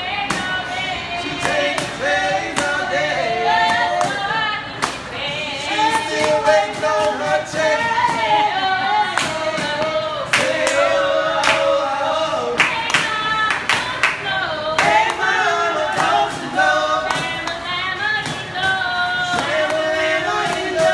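Several voices singing together, a live group song, punctuated by frequent sharp percussive hits such as claps.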